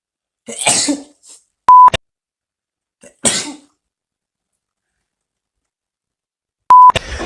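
Two sharp sneezes, one about half a second in and one about three seconds in, with a short steady beep tone between them and another beep near the end.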